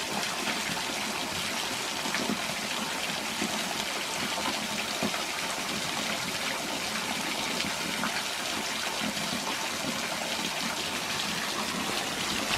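Steady splashing rush of a small creek waterfall about 8 or 9 feet tall, its water falling in three channels.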